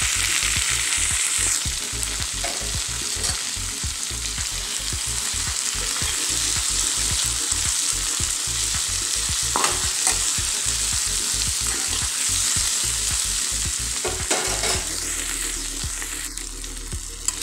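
Paneer, onion, tomato and capsicum sizzling in a hot kadhai while a spatula stirs and turns them, with a few clicks of the spatula against the pan.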